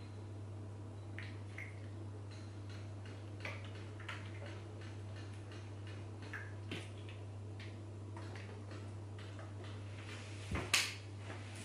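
Soft clicks and short rustles of laundry being handled at a front-loading washing machine, with a louder knock about ten and a half seconds in. A steady low hum runs underneath.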